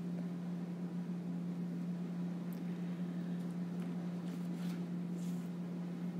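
Steady low electrical hum with an even hiss, the background noise of the recording, with a few faint soft scratches in the second half.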